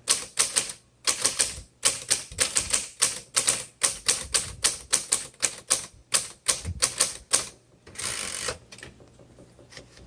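Manual typewriter keys being typed quickly on a 1961 Royal Forward portable, a steady run of sharp typebar clacks at about four to five a second. About eight seconds in, the typing stops and there is a short rasping sound, followed by a few faint ticks.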